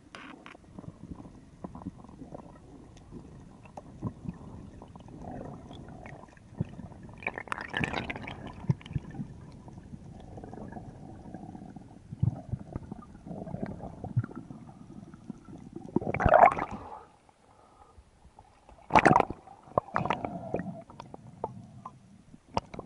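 Underwater water noise: a low rumble of moving water with gurgling, scattered small clicks and a few louder gurgling bursts, the strongest about two thirds of the way through.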